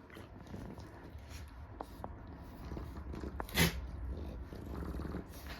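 A pet sneezing once, a short sharp burst about three and a half seconds in, after a few faint clicks; the owner wonders whether cotton stuffing from a toy is setting off the sneezes.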